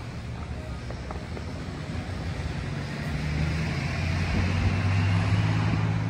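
A motor vehicle's engine running close by with a low steady hum and a rushing hiss, growing louder over the last few seconds as it draws nearer.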